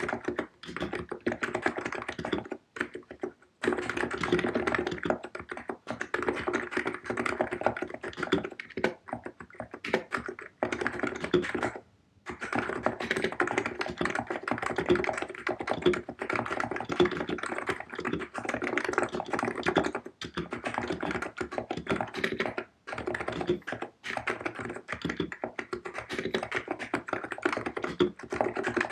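Fast typing on a COX Empress electro-capacitive keyboard with 50 g switches: a dense run of quick key strokes with brief pauses about three seconds in and again near twelve seconds.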